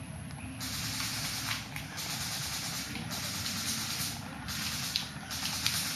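Rustling of leaves and undergrowth in a run of bursts about a second long each, with a few faint clicks among them.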